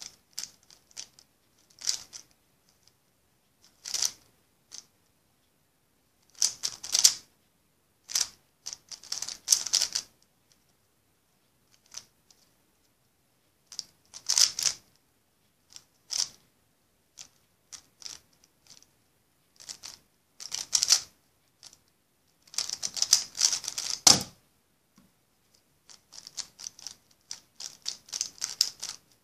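Plastic 3x3 speedcube being turned fast during a speed-solve: rapid clacking of its layers in bursts of many quick clicks, with short pauses between bursts.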